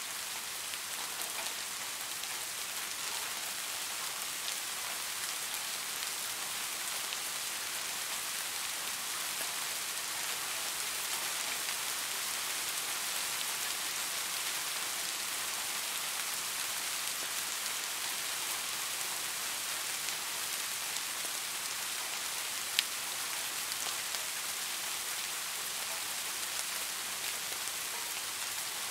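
Steady rain falling, an even hiss of many drops, with one sharp tick about three-quarters of the way through.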